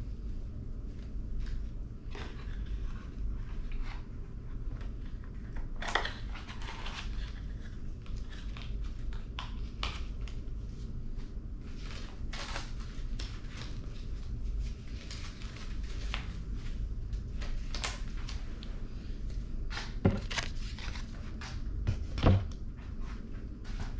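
Paper and small packaging rustling and crinkling as they are handled and sorted, with scattered light clicks and taps over a steady low hum. Two dull thumps near the end are the loudest sounds.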